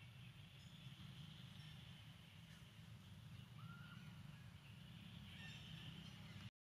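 Near silence: faint outdoor ambience among trees, a steady high hiss over a low hum, with one short chirp about three and a half seconds in. The sound cuts out briefly at the very end.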